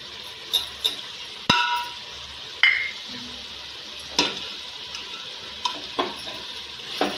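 Steel spoon clinking and scraping against a metal cooking pot while yogurt is spooned into frying chicken masala, over a steady sizzle. About eight sharp clinks; the loudest, about one and a half seconds in, rings briefly.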